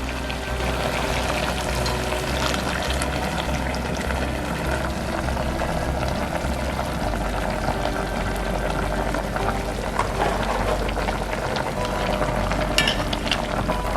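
Food cooking on the stove, a steady sizzling and bubbling with a few sharp pops near the end.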